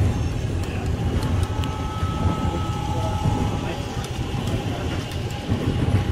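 Model freight train cars rolling past close by: a steady rumble of the wheels on the track with scattered light clicks. A thin, faint whine sounds for about two seconds starting about a second in.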